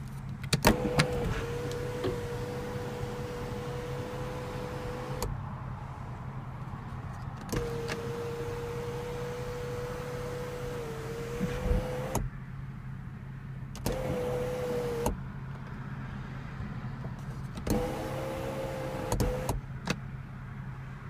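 2014 BMW 435i's electric sunroof motor running as the glass panel moves. A steady whine comes four times, two runs of about four to five seconds and then two short ones of one to two seconds, each starting and stopping with a click.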